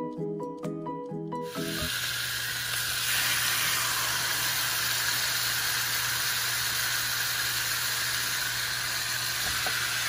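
Brief plucked background music. Then, from about a second and a half in, a steady sizzle of marinated chicken leg pieces frying in hot oil in a frying pan, growing louder about three seconds in.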